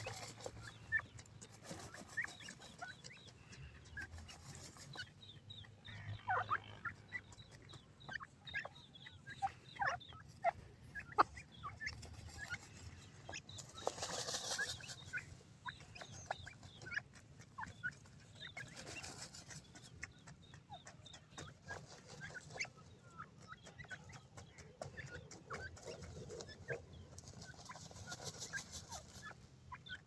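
Grey francolins dust-bathing in loose dry soil: short scattered calls over scratching and fluttering in the dirt. The fluttering swells about 14 seconds in and again near the end.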